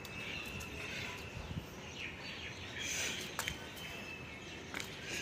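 Birds chirping over steady outdoor background noise, with a couple of sharp clicks about three and a half and five seconds in.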